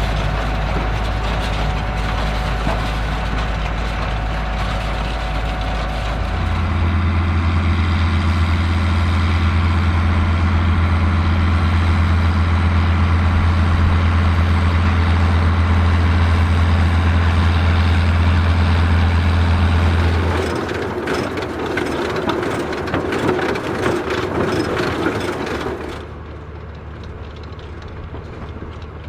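Vintage farm tractor engines running steadily under work. The engine note steps up to a strong, steady hum about six seconds in. It gives way to a rattling, clattering machinery noise near twenty seconds, and the sound changes abruptly a few seconds before the end.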